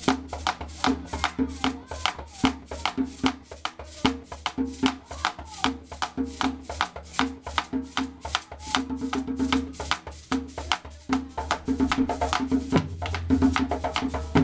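Background music with a fast, steady percussion beat of about four clicks a second over a low bass line.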